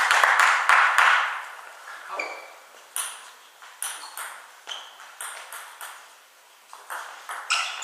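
Celluloid-type table tennis ball clicking off bats and bouncing on the table in a rally: sharp, irregularly spaced ticks. A short, louder burst of noise sits in the first second.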